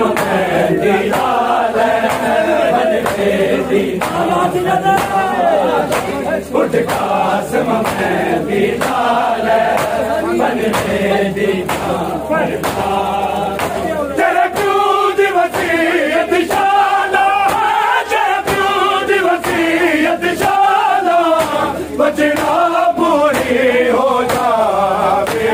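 A group of men chanting an Urdu noha, a Shia mourning lament, in unison, with regular hand strikes on the chest (matam) keeping the beat.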